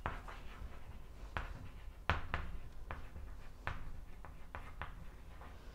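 Chalk writing on a blackboard: a string of short, irregular taps and scratches as letters are formed.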